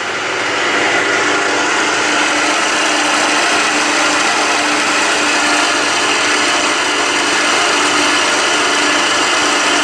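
Vertical milling machine cutting a groove with a 6 mm end mill at 1600 RPM, taking 1 mm deep passes: a steady machining noise with a constant whine.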